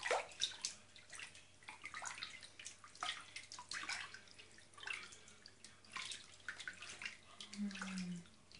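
Bath water sloshing and splashing in a baby bathtub, swirled by hand around a baby to make a little whirlpool, in many quick irregular splashes. A short hum from a voice near the end.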